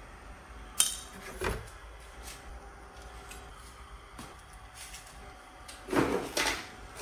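Handling clatter of tools and small parts during repair work: a sharp click about a second in, a knock just after, a few faint ticks, then a cluster of louder clinks and knocks near the end.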